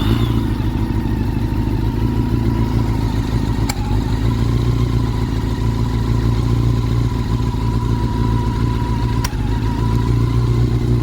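Honda CB400 Super Four inline-four engine idling steadily, just after its valve clearances were readjusted to cure a tick from the head. Two brief clicks sound over the idle, about 4 and 9 seconds in.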